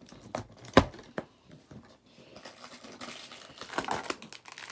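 A cardboard advent-calendar door being pried open, with a sharp snap about a second in and a few lighter clicks. Then a small plastic bag crinkles as the toy figure inside is pulled out.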